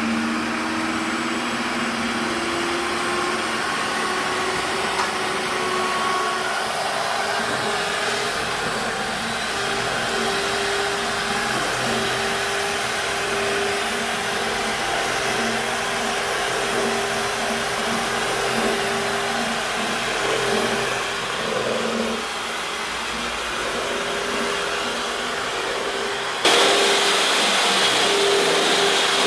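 Electric hand mixer running steadily, its beaters whisking batter in a stainless steel bowl: a steady motor whine over a hiss. About 26 seconds in the sound turns suddenly louder and hissier.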